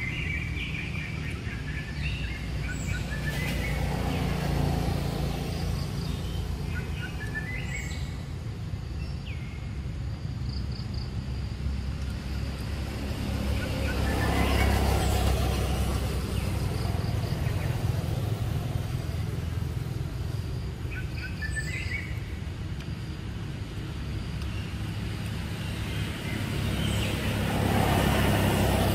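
Steady low motor rumble, louder about halfway through and again near the end, with small birds chirping now and then.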